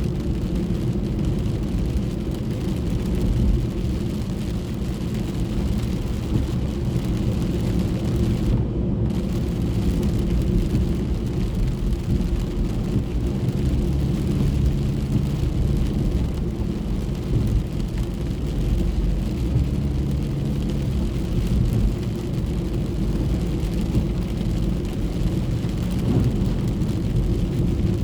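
Rain and road noise inside a moving car's cabin: a steady low rumble of tyres and engine under an even hiss of rain and spray. The hiss briefly drops out about nine seconds in.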